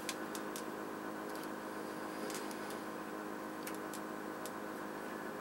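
Scattered faint clicks from a compression nut being turned by hand on a fridge's water-line inlet fitting, as it is worked back and forth to catch the thread, over a steady hum.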